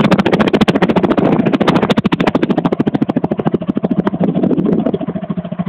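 Mazda RX-8's rotary engine running with a rapid, even knocking, more than ten knocks a second, that the owner cannot explain and suspects is a fault.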